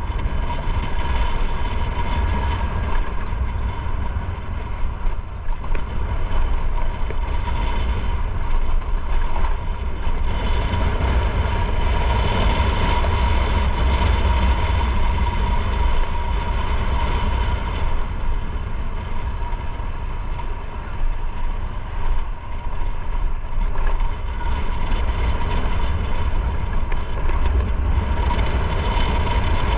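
Motorcycle on the move: steady engine and road noise with a deep low rumble and a constant high whine.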